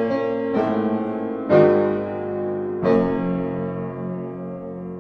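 Slow piano music: a few chords struck, the last about three seconds in and left to ring and fade.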